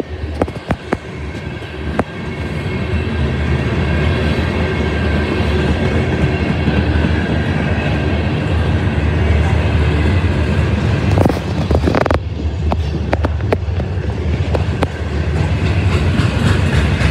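A freight train's cars, including loaded steel coil cars, rolling past close by: a steady rumble and clatter of steel wheels on rail that builds over the first few seconds and then holds, with scattered sharp clacks.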